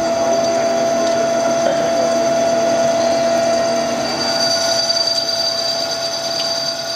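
Haas TL-1 CNC lathe turning a metal tube with coolant flowing onto the cut: a steady high-pitched machining whine over a hissing noise, easing slightly near the end.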